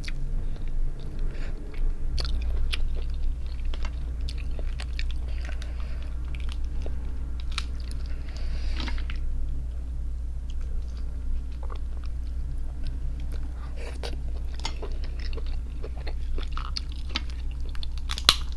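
Close-miked chewing and scattered small cracks and clicks of cooked crab shell as the meat is picked out by hand and eaten, over a steady low hum.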